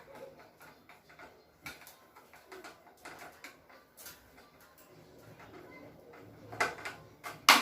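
Scattered clicks and knocks of electric stand fan parts being handled and fitted together during assembly, with a louder clatter of knocks near the end.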